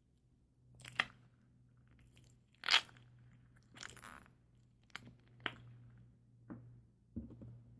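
Homemade slime being squeezed and stretched by hand, giving a string of about seven short, sharp crackles and pops, the loudest nearly three seconds in.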